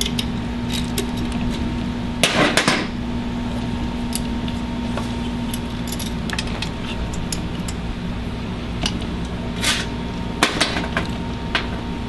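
Metal hand tool clicking and clinking on a golf cart solenoid's terminal nuts and cable lugs as the cables are unbolted. Louder metal clatters come about two seconds in and again near the end, over a steady hum.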